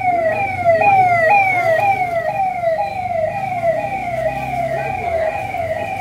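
A siren yelping: a quick, repeating rise-and-fall wail at a little over two cycles a second. It grows fainter about halfway through.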